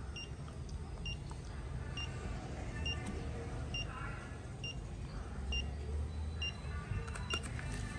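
Fingertip pulse oximeter beeping in time with its pulse reading: short high beeps, evenly spaced a little under a second apart, over a low background rumble.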